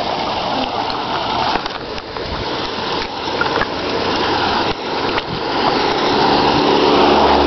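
Steady hiss of rain and water on a wet road, growing louder toward the end as a car's engine hum comes in near the end.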